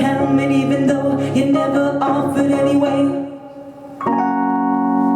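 Live band music with sustained keyboard chords. The sound drops away briefly about three and a half seconds in, then a new held chord comes in.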